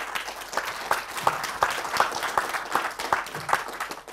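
Audience applauding, a dense run of hand claps that thins out and fades near the end.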